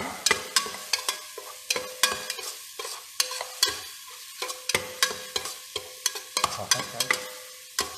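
A spatula stirring and scraping minced garlic and fermented bean paste frying in oil in a stainless steel pressure-cooker pot, with irregular clicks and scrapes against the pot's sides and base over a steady sizzle.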